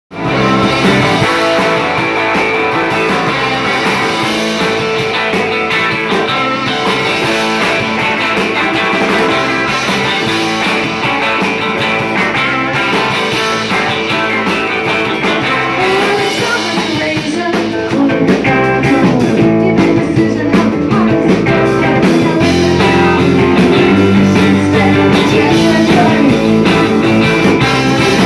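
Live rock band playing loudly: electric guitars and a drum kit. It gets louder and fuller about two-thirds of the way in.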